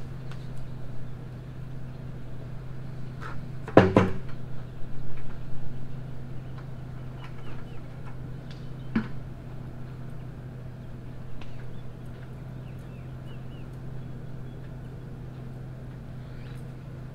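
A loud metallic clank with a brief ring about four seconds in, then a few lighter knocks, over a steady low hum.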